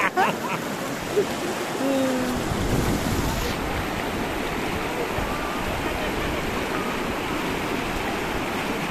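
Fast mountain river rushing over rocks, heard close up: a steady rush of white water that turns deeper and fuller about two and a half seconds in.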